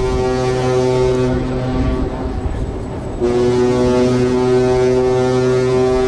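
Ship's horn sounding a long, deep blast that fades out about two seconds in, then a second long blast starting about three seconds in and held.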